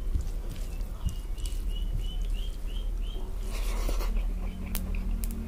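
Fingers squishing and mixing soft cooked rice with dal on a plastic plate, a few light clicks from the plate, over a steady low hum. In the first half a quick run of about eight short, high chirps, about four a second, stops abruptly.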